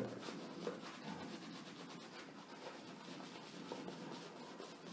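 Faint, steady rubbing and swishing of a two-band badger-hair shaving brush working soap lather over a stubbly face.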